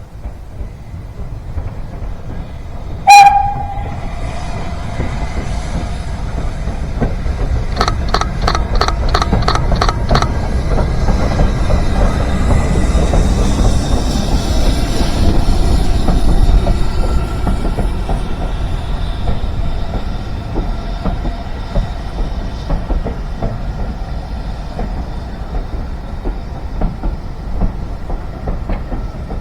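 Steam train passing on a heritage railway: a short, loud whistle blast about three seconds in, then a quick run of about nine clicks from the wheels. A deep rumble builds to a peak about halfway through and slowly fades.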